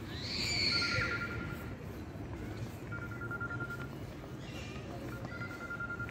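A flat, high electronic tone about a second long repeats roughly every two seconds, in the manner of a phone ringing, over open-air park ambience. A brief high-pitched cry, the loudest moment, comes in the first second.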